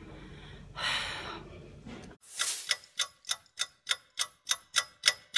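A steady ticking sound effect, like a clock ticking fast, starting about two seconds in at roughly three ticks a second over a silent background.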